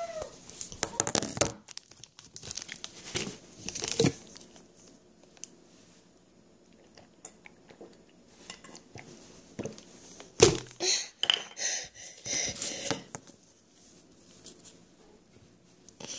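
Handling noise on a phone's microphone: scattered rustles, scrapes and crackles as the phone is moved about. A sharp knock about ten seconds in is followed by a couple of seconds of crackling.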